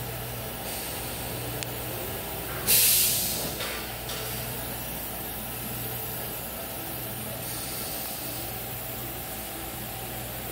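A short burst of compressed air hissing about two and a half seconds in, sudden at the start and fading over about a second and a half, over a steady machine hum.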